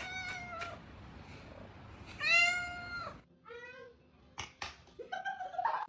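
A cat meowing about four times; the longest and loudest meow comes about two seconds in. Two sharp clicks fall between the later meows.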